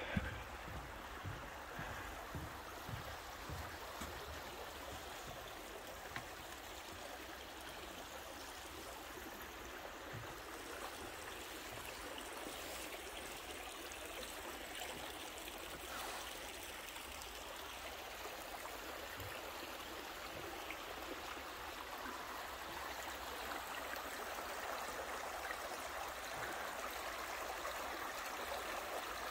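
A small stream running steadily, a continuous babble of water that grows slightly louder toward the end. There are a few footsteps in the first few seconds.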